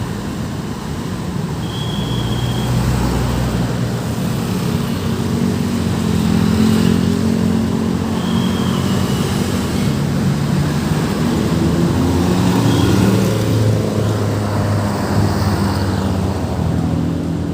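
Road traffic passing: a steady mix of vehicle engines with a low drone that shifts in pitch as vehicles move by, and three brief high beeps along the way.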